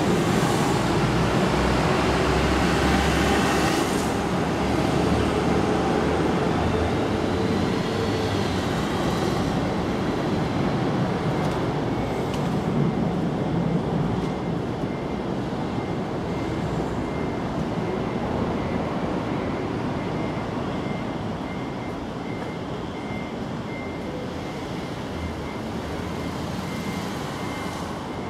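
Steady outdoor rumble of distant road traffic, easing slightly toward the end, with a faint high pulsing tone from about halfway.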